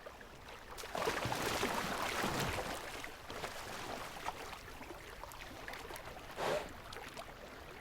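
Water sloshing and splashing, swelling about a second in and easing off, with a short louder splash about six and a half seconds in.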